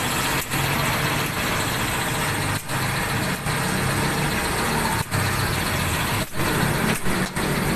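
Air compressor running steadily while air is pumped into a freshly plugged tyre, a low hum under a dense hiss, with a few very brief breaks.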